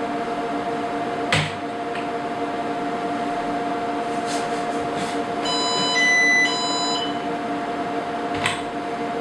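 IBM IntelliStation POWER 285 workstation's cooling fans running steadily with its side panel and front door closed, a hum of several steady tones over an even whoosh. Two sharp clicks sound, about a second and a half in and near the end, and about five and a half seconds in a short electronic beep sequence of three tones plays, the middle one higher.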